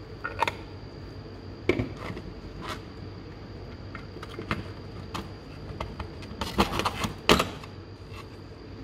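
Clicks and light metallic knocks of a red steel Snap-on socket box and its tray of chrome 1/4-inch sockets, ratchet and extension being handled and set in place. A quick cluster of clatter comes about seven seconds in, ending in the loudest knock.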